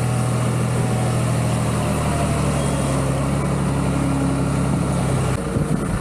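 MKSM-800 skid-steer loader's diesel engine running at a steady speed close up. It gives way abruptly near the end to a rougher noise.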